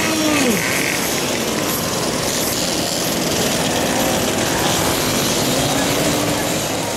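A column of small two-stroke mopeds and motorcycles riding past, many engines buzzing together at once. One passes close just after the start, its engine note dropping in pitch as it goes by.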